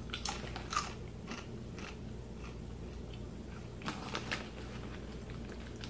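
Corn chips (Fritos Chili Cheese) being chewed with the mouth close to the microphone: a string of short, irregular crunches, a few in the first two seconds and a quick cluster about four seconds in.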